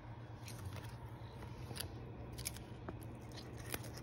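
A kitten biting and chewing a dry maple seed (whirlybird): a few scattered small crunches and clicks, over a faint steady low hum.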